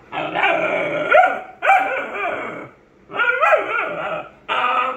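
A Great Dane puppy and a German Shepherd play-fighting with loud, drawn-out barks and yowls whose pitch slides up and down. The puppy's dog "talking" comes in about four bursts with short breaks between them.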